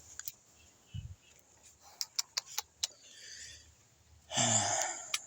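Scattered clicks and a low thump of handling, then a person's long sigh near the end.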